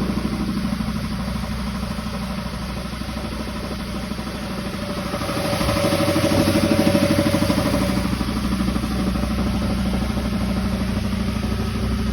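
1999 Toyota 4Runner engine idling steadily, with a louder stretch about halfway through. The idle is smooth now that an air leak in the intake pipe after the airflow sensor has been sealed and the cylinder-4 misfire is gone.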